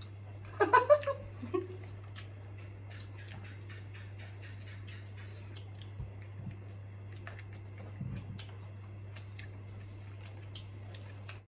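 People eating rice and meat with their fingers: faint scattered clicks and ticks of hands on plates and chewing over a steady low hum, with a brief voice sound about a second in.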